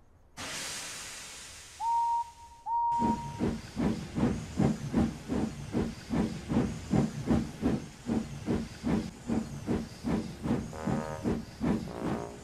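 Steam locomotive setting off: a hiss of steam that fades, two short whistle toots, then steady chuffing at about two beats a second.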